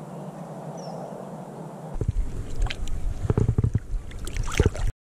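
Steady wind and river ambience, then about two seconds in, heavy wind buffeting on the microphone with irregular splashing and sloshing as a chub is lowered by hand into the shallows and released. The sound cuts off abruptly near the end.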